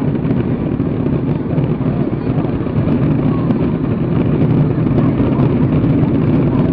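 Fireworks finale barrage: a great many shells bursting almost at once, their reports merging into one dense, steady, low rumble with no separate bangs standing out.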